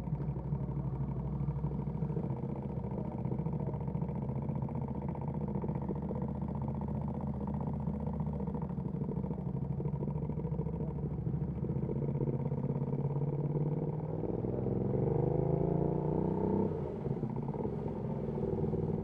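Ducati Panigale V2S V-twin running through a Termignoni exhaust at a steady, low engine speed; about fourteen seconds in it revs up, rising in pitch for about two seconds, then drops off abruptly as the throttle closes or a gear is changed.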